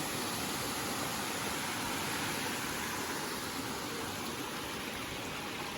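Waterfall's falling water rushing steadily, an even hiss with no breaks.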